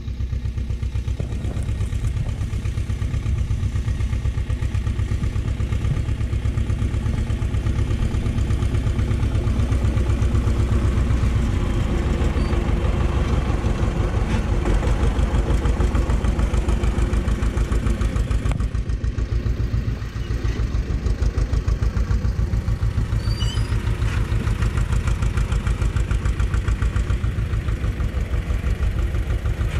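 Vladimirec T-25 tractor's two-cylinder air-cooled diesel running at working speed with an even, pulsing beat while it pulls a seedbed combinator. It grows louder as the tractor approaches and is loudest around the middle, when it passes close by.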